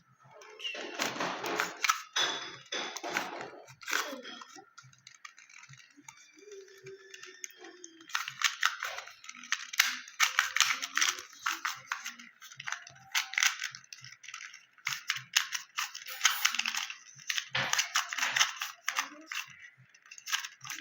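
Plastic clicking and clacking of a 2x2 Rubik's cube being turned by hand, coming in quick bursts of turns with short pauses as a move sequence is repeated to finish the solve.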